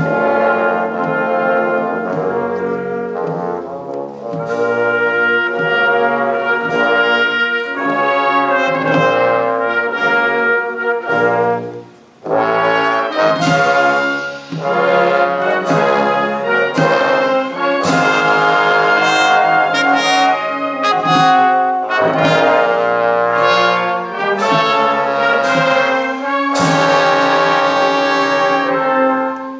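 A brass band playing held chords of several notes, with a brief break about twelve seconds in.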